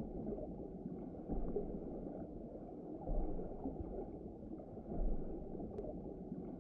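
Muffled underwater ambience: a low, dull rumble of water with soft swells about every couple of seconds.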